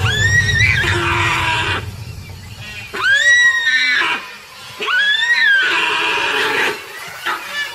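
A deer seized by a crocodile giving loud, shrill distress cries, three calls that each rise and then fall in pitch, with fainter cries near the end.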